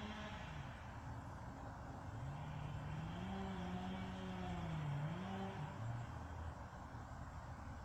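An engine speeding up and slowing down: its pitch rises about two seconds in, holds, dips briefly near five seconds, then falls away, over a steady low rumble.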